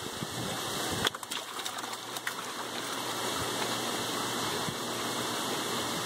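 Steady rushing noise like running water, with a few short knocks about a second in.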